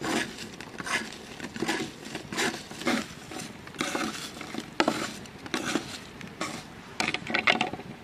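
French fries being piled and shifted on a wooden board with wooden utensils and fingers: a series of light clattering knocks and rustles, about one a second, with a quick cluster near the end.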